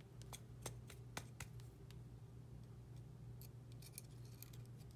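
Faint, scattered small metallic clicks and ticks of a hex (Allen) wrench working the small screws out of a pistol slide's rear-sight plate and the steel slide being handled, a few about a second in and a quick cluster near the end, over a steady low hum.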